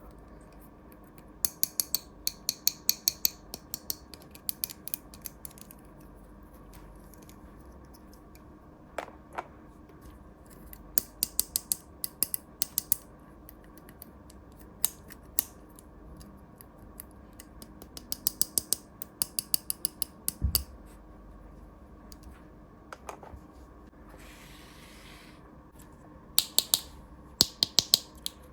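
Runs of crisp, rapid clicks and snips from small plastic toy pieces and packaging being handled, with a soft thump about two-thirds of the way through and a brief rustle shortly after.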